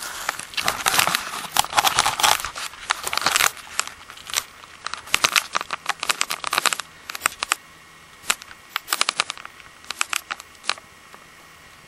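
Close rustling and crackling with irregular clicks, dense for the first three and a half seconds, then sparser clicks in small clusters until about eleven seconds in: handling noise near the microphone, not shots.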